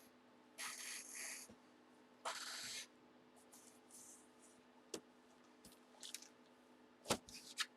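Plastic bag crinkling in two short hissy bursts as an oversized jersey is pushed into it, followed by a few light clicks and taps.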